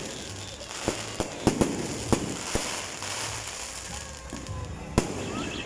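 Aerial fireworks going off: irregular sharp bangs, about seven in all, with the loudest near the start and about five seconds in, over a steady crackle of bursting shells.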